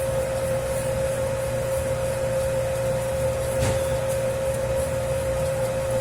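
Dough mixing machine running steadily while kneading a 10 kg batch of pizza dough: a steady motor hum with one clear tone, and a single brief knock a little past halfway.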